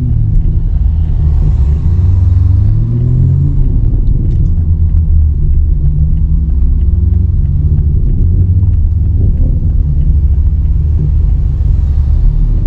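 Toyota GR Supra's B58 turbocharged inline-six running through a single-exit titanium exhaust, with the stock catted downpipe still fitted, giving a loud, deep tone. The revs rise and ease off a couple of times in the first few seconds, then hold fairly steady.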